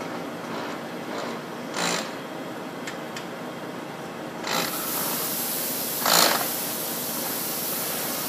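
Poreba heavy-duty lathe running, a steady mechanical noise with several short rasping bursts, the loudest about six seconds in. A high hiss sets in about halfway through.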